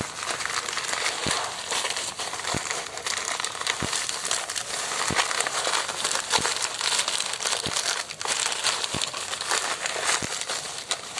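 Bubble-wrap packaging being handled and pulled open, a continuous crinkling and crackling of plastic.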